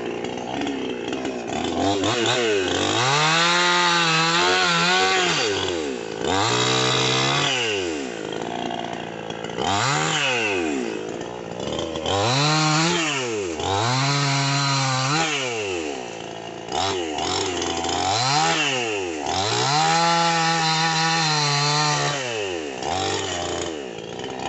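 New West Senso two-stroke chainsaw revving up and falling back about eight times, sometimes held at high speed for two or three seconds before dropping.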